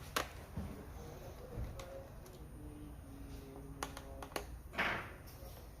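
Irregular light clicks and taps, with a short rustling burst about five seconds in.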